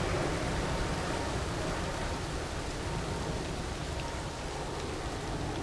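Distant jet engine noise of a Boeing 787-9 airliner climbing away after departure: a steady, rushing rumble that eases off slightly.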